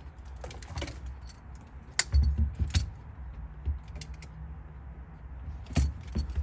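Handling knocks as a Skar Audio 10-inch subwoofer and a can are shifted and set against the floor of a car trunk. There are a few sharp clicks with dull low thumps, about two seconds in and again near the end.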